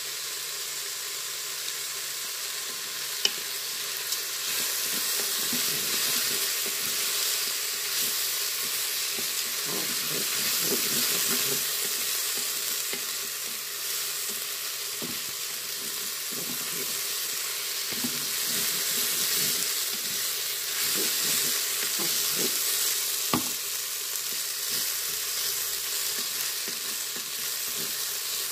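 Rice and shredded zucchini sizzling in hot oil in a Cookeo electric pressure cooker's pot, stirred and scraped around with a wooden spoon while the rice toasts. Two sharp taps, one a few seconds in and one near the end.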